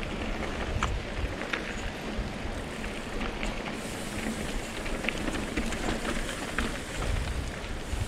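Mountain bike rolling along a rocky dirt trail: steady tyre and wind noise with scattered sharp clicks and ticks from stones and the bike.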